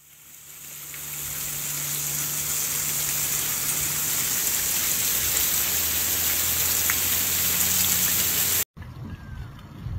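Heavy rain pouring onto a flooded street: a steady hiss that fades in over the first second or two, with a low steady hum beneath it. It cuts off abruptly near the end, giving way to a low rumble of wind on the microphone.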